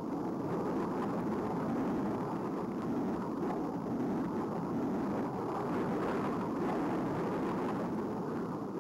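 Jet aircraft in flight: a steady rushing engine noise with no distinct whine.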